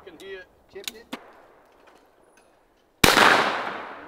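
20-gauge shotgun fired at clay targets. There are a couple of faint clicks about a second in, then one sharp report about three seconds in that rings out and dies away over about a second, and a second shot right at the end.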